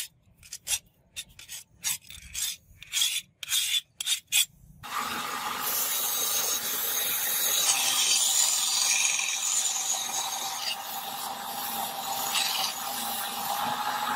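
Metal blade being worked by hand: a series of short scraping strokes, roughly two a second, then from about five seconds in a continuous grinding hiss with a steady hum underneath.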